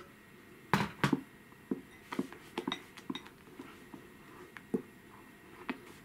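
Clinks and knocks of glass kitchenware: a spatula working against a glass mixing bowl as whipped cream is folded, with two sharper knocks about a second in and then scattered lighter clicks.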